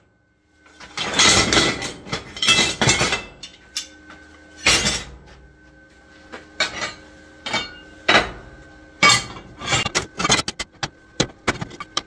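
Lengths of square steel tubing and steel plate being set down and shifted on a steel worktable: a loud clatter of metal on metal about a second in, then scattered clanks and clinks.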